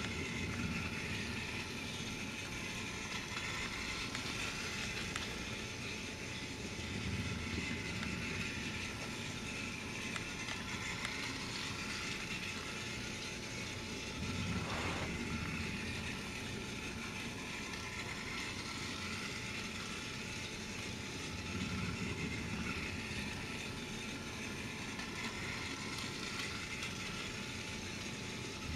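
Battery-powered toy train motor running with a steady whir, the level swelling gently every several seconds, with a brief click about halfway through.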